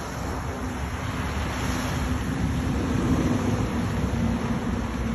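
Wind buffeting the microphone over the steady wash of small waves on the shore.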